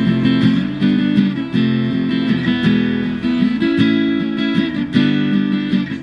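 Acoustic guitar strummed in a steady rhythm of chords.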